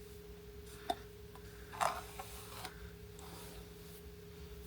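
A few brief rustles and a light tap from handling the synthetic wig's hair, the loudest just under two seconds in, over a faint steady hum.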